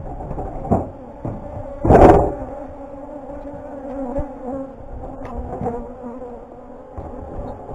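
Honeybees buzzing steadily around a horizontal beehive, a low drone. Scattered knocks come from the hive box as its lid is handled, with one louder bump about two seconds in.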